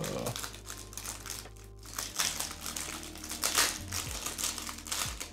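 Crinkling of a thin clear plastic wrapper handled and pulled at by hands as a small packaged keychain is unwrapped, in irregular crackly rustles.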